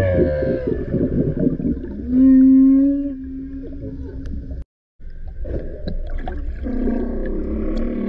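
Humpback whales calling underwater: a falling moan and a run of low grunts, then a loud, steady low moan from about two seconds in that holds for a couple of seconds. The sound cuts out for a moment near the middle, and more low moans start near the end.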